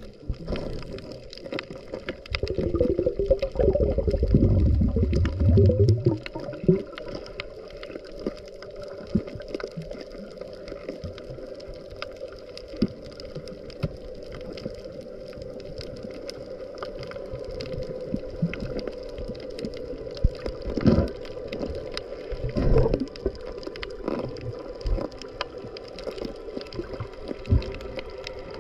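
Muffled underwater sound from a submerged camera. Water gurgles and churns against the housing, with a loud low rumble for a few seconds near the start and scattered knocks later. A steady low hum runs underneath.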